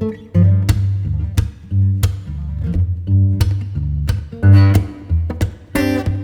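Background music: an acoustic guitar picking single notes over low bass notes, with a fuller strummed chord near the end.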